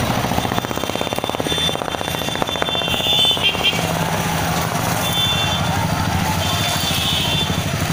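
Noisy street procession: a crowd of marchers with many voices mixed together over running motorcycle engines, with short high-pitched tones a few times from about the middle on.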